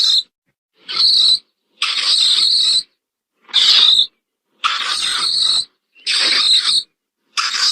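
A mole's harsh, high-pitched chittering calls, repeated in short bursts of half a second to a second with abrupt silent gaps between them, about eight bursts.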